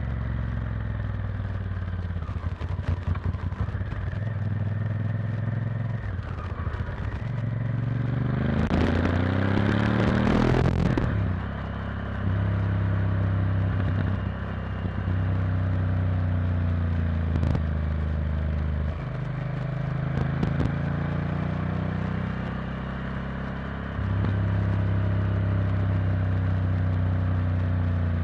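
Honda Varadero XL1000's V-twin engine running under way, its pitch and level stepping up and down with throttle and gear changes. About eight seconds in it revs up hard for a few seconds with a rush of wind noise, then drops back.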